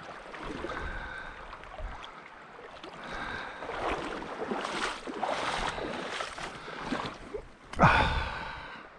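Shallow river water running and splashing, rising and falling in level, with a brief louder burst near the end.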